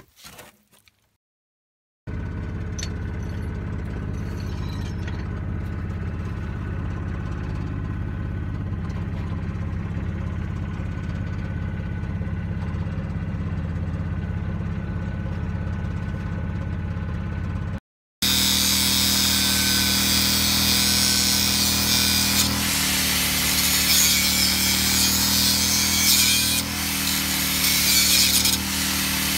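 Steady mechanical hum. After a brief cut a little past halfway it comes back louder, with a harsh hissing noise over the hum.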